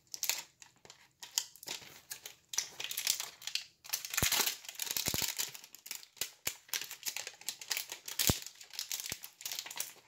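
Plastic shrink wrap being torn and peeled off a sealed cardboard box of trading cards, crinkling in irregular bursts with a few sharp clicks.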